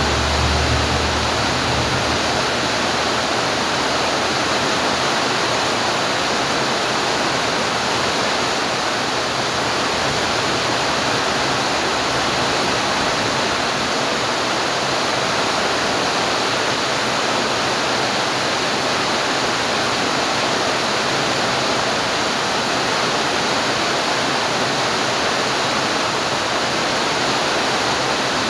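Heavy rain falling in a steady, even hiss. A low rumble underneath fades out about a second in.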